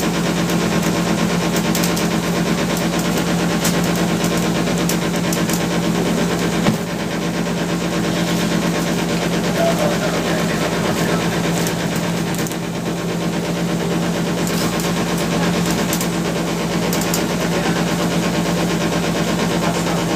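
Small passenger ferry's engine running steadily underway, a constant low hum that does not change.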